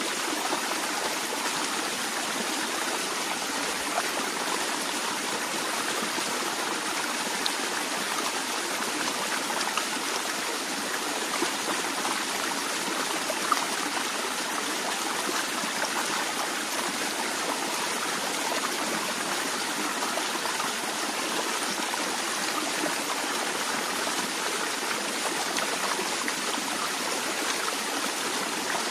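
Stream of water flowing steadily over rocks, a constant babbling and trickling with small splashes here and there.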